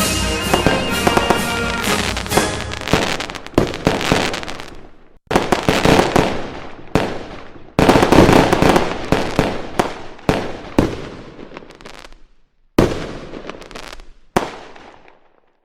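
Fireworks going off: a series of sudden bangs, each followed by crackle that fades away, with brief silences between the biggest ones. Background music fades out in the first couple of seconds.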